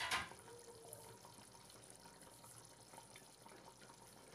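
Mutton and potato curry simmering in a pot, a faint bubbling, with one short knock right at the start.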